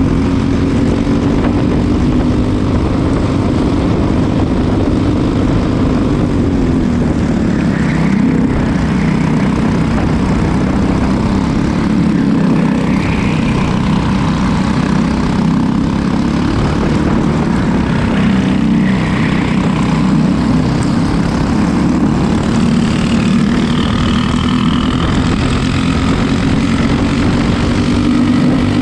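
Racing kart engine running hard at race pace, its buzzing note rising and falling repeatedly as the throttle opens and lifts through the corners, over a constant rush of wind and road noise.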